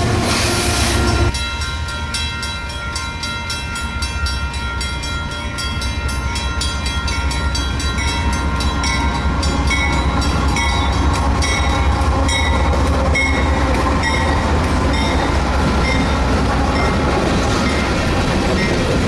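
A train rolling past on the rails with a low rumble and a steady run of wheel clicks over rail joints. Several steady high tones sound over it and fade away by about the middle.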